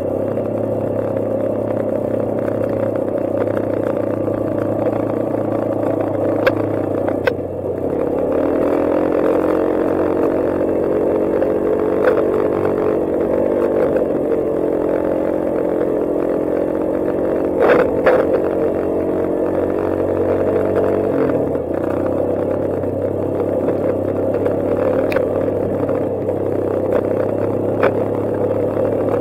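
Quad ATV engine running under way along a dirt trail, its note shifting with throttle and gears, dropping lower about seven seconds in and changing again near the end. A few short sharp knocks and rattles break through, the loudest around the middle.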